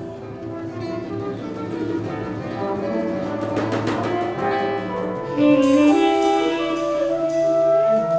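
Instrumental music with held notes, growing louder about five seconds in.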